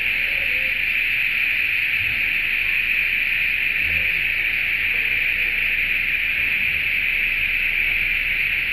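A chorus of cicadas buzzing, a steady high-pitched drone that never breaks.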